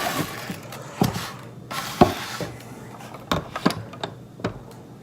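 Hands working a die-cast model car out of its packaging: scraping and rubbing, with several sharp clicks and knocks.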